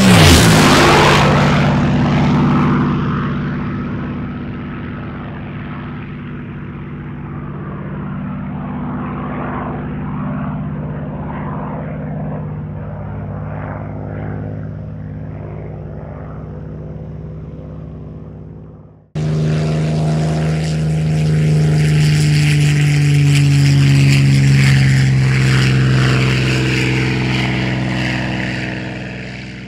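Supermarine Spitfire Mk VIII's Rolls-Royce Merlin V12 engine in a flypast, loudest at the start as its pitch drops sharply while it passes, then a drone fading slowly away. After an abrupt cut about 19 seconds in, a second, louder engine recording with a steady low drone begins and fades out near the end.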